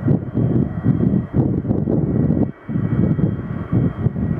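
Aircraft engine noise: a loud, uneven low rumble that drops away briefly about two and a half seconds in.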